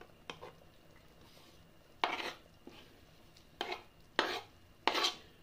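A utensil scraping along a wooden cutting board, pushing grated beetroot off the board into a pot of soup: about five short scraping strokes, irregularly spaced, with a pause of over a second after the first.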